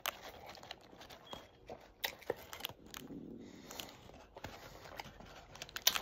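Close-up mouth sounds of someone chewing a mouthful of burger with the lips open: irregular wet smacks and clicks.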